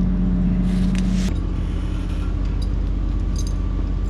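Excavator engine running steadily under load, with a short hiss just before its note changes about a second in.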